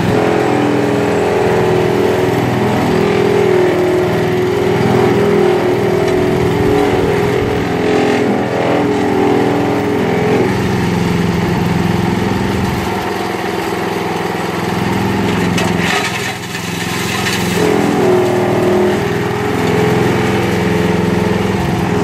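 Petrol engine of a wood chipper/shredder running hard and loud, its note sagging and picking up again a couple of times as it takes load. Brief crackles come through as branches are shredded.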